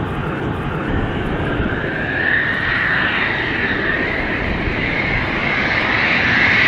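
Eurofighter Typhoon jet engines: a steady, loud rush with a high whine that climbs slightly in pitch, growing a little louder near the end.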